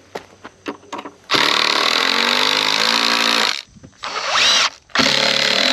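Power drill driving 3-inch deck screws into wood: the motor runs under load for about two seconds, revs up briefly about four seconds in, then drives again. A few light clicks and knocks come before the first run.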